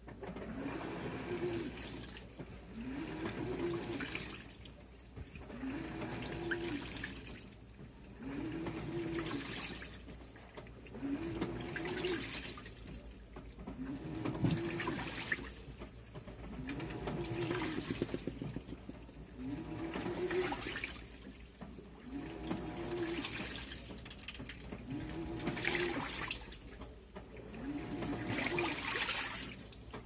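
Top-load washing machine agitating a full load of laundry in water. A motor whir rises each time the drive reverses, about every two and a half to three seconds, and water sloshes and churns in between.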